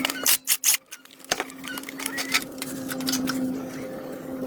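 A few sharp clicks or knocks, then a steady low mechanical hum with scattered light clicks.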